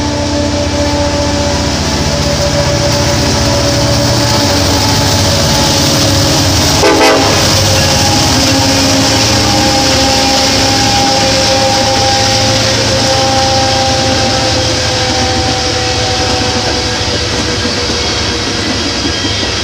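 Freight train passing, its diesel locomotives' air horn held in one long chord that drops slightly in pitch as they go by about seven seconds in, then fades. The steady rumble and clatter of the hopper cars carries on underneath.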